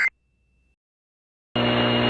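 The tail of an EAS end-of-message data burst: a brief digital screech that cuts off just after the start. Then silence, and about a second and a half in, weather-radio static with a low hum comes in steadily.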